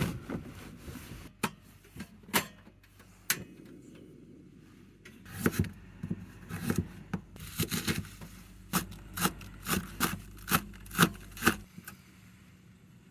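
Sharp clicks and knocks of objects being handled, a few at first, then a quick string of them from about five seconds in. Under them is a low steady hum that stops near the end.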